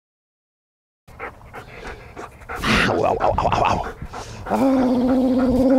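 After about a second of silence, a dog gripping a ball in its mouth pants and growls as it holds on. A man gives the command 'out' partway through, and a steady held voice sound fills the last second or so.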